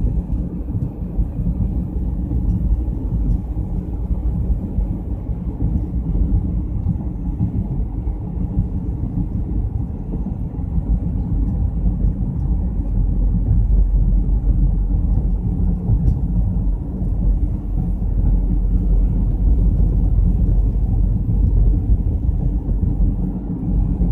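Steady low rumble of road and engine noise heard inside a moving car's cabin, growing a little louder about halfway through.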